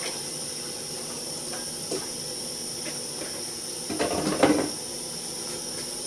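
Steady hiss of an MSR Whisperlite Universal liquid-fuel stove burning at low heat as it warms up, with plastic water bottles being handled over it: a few light clicks, and about four seconds in a louder crinkle of a bottle being picked up and its cap unscrewed.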